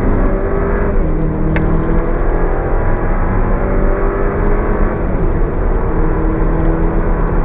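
Turbocharged four-cylinder petrol car engine accelerating at full throttle, heard from inside the cabin. Its pitch climbs and drops back at upshifts about a second in and about five seconds in. A single sharp click comes about a second and a half in.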